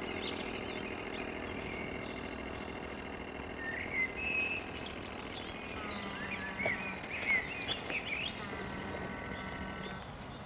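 Small birds chirping and calling over a steady outdoor background hiss. A steady low hum with higher tones above it comes in about six seconds in and again near the end.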